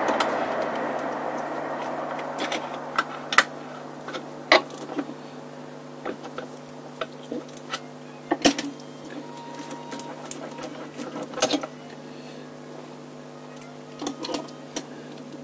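Hand tools clicking and knocking against metal engine parts in irregular single strikes, several seconds apart, over a steady low hum. A fading hiss dies away in the first couple of seconds.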